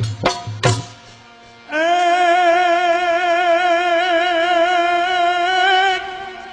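Bhajan music: a few drum strokes, a short lull, then a single long sung note held for about four seconds with a wavering vibrato.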